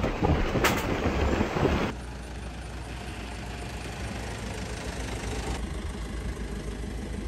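Loud wind rumble on the microphone for the first two seconds. After an abrupt change, a Mercedes-Benz Sprinter van's engine runs steadily with a low, even hum.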